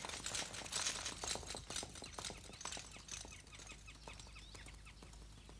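Galloping horse's hoofbeats, a rapid run of clops that fades steadily as the horse moves away.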